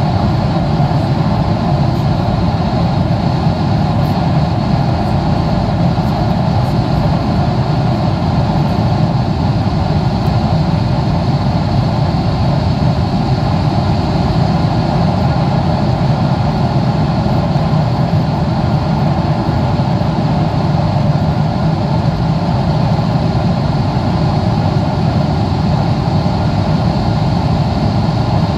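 Steady cabin noise of a Boeing 777-300ER in flight: its GE90-115B engines and the rush of air, heard from inside the passenger cabin. An even, unchanging low drone with a hiss above it.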